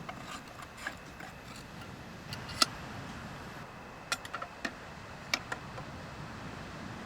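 Scattered sharp clicks and light clinks of small objects being handled and set down. The loudest comes about two and a half seconds in, with a quick cluster a little after four seconds, over a steady low background noise.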